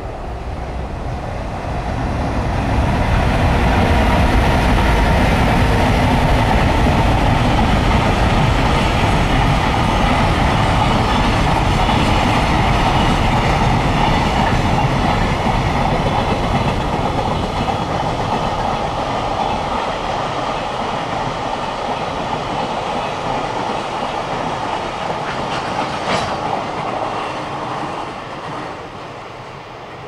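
Long container freight train running past, the rumble of its wagons' wheels on the rails building over the first few seconds, holding steady, then fading near the end as the train draws away. One sharp clank shortly before the end.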